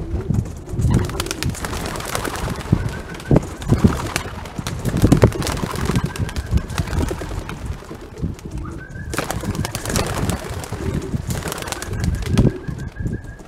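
Racing pigeons cooing around their loft, with many sharp wing claps and flapping as birds fly over and land.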